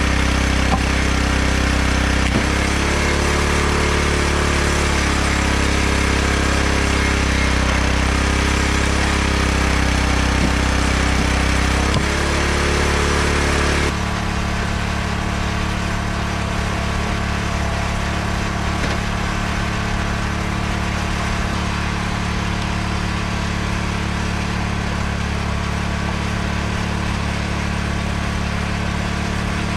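Small gas engine of a hydraulic log splitter running steadily. Its note changes for about ten seconds early on, and from about halfway it sounds quieter and more distant.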